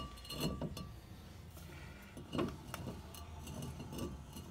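A new cast-iron brake rotor being slid onto a wheel hub: a few faint, light metallic clinks and taps.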